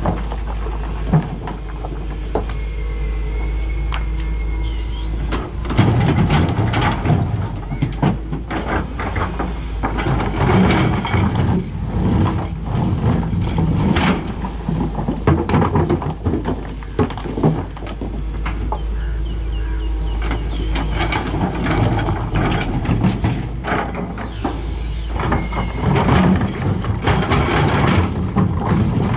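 Doosan DX225LCA excavator working as it loads a dump truck: its diesel engine runs steadily under a busy run of clanks and knocks that starts about six seconds in.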